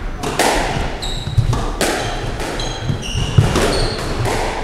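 Squash rally: the ball cracks off the rackets and the walls about once a second, with short high squeaks of court shoes on the wooden floor between the shots.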